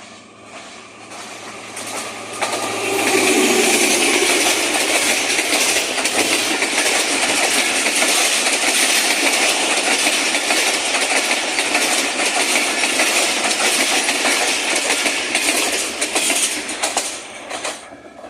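A train passing close by: its noise builds over the first few seconds, then runs loud and steady as the railcars go past, with wheel clicks over the rail joints growing more distinct and the sound falling away near the end.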